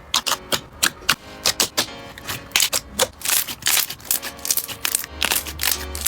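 Slime being squeezed and worked by hand, giving a fast, irregular run of sticky clicks and pops, over soft background music.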